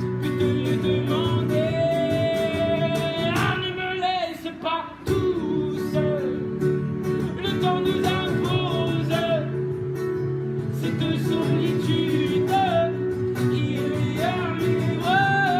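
A man singing to his own strummed acoustic guitar in live performance. The guitar drops out briefly about four seconds in while the voice carries on, then comes back in.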